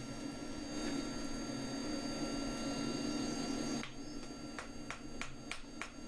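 A steady hum that cuts off suddenly a little over halfway through, then a hand hammer striking a red-hot spring steel bar on the anvil face, about three sharp blows a second.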